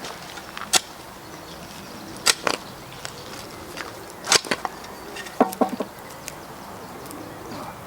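Hand planting work in a soil-and-gravel bed: a few sharp clicks and scrapes, spaced a second or two apart, over a low steady background.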